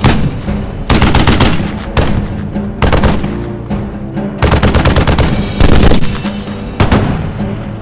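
Heavy machine gun firing about seven short bursts of rapid automatic fire, each burst half a second or so with an echoing tail after it.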